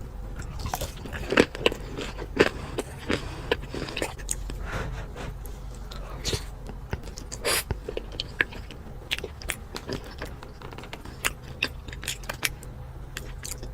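Close-miked eating: biting into and chewing crispy fried food, a run of irregular crunches and wet mouth clicks.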